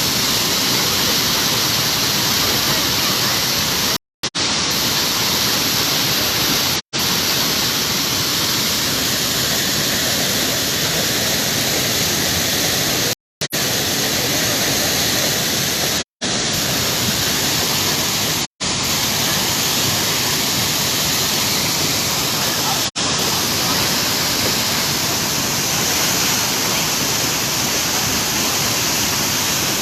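Waterfall rushing close by: a steady, loud hiss of falling water, broken by several short drops to silence.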